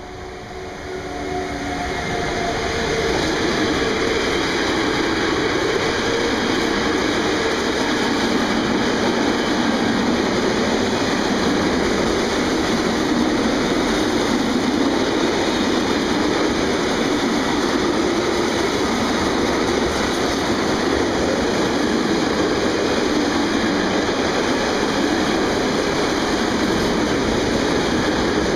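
Electric locomotive of a container train passing close by, with a faint whine of a few steady tones over the first couple of seconds. The sound grows louder and becomes a long, steady rolling noise of the container wagons' wheels on the rails.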